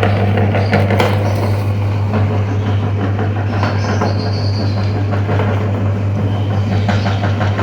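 Electric meat grinder running with a steady hum, crunching and crackling as it grinds frozen ice pops.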